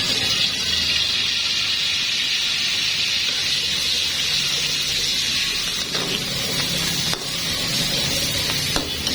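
Food sizzling in hot oil in a pan, a steady hiss that eases off after about six seconds, with a few sharp utensil clicks near the end.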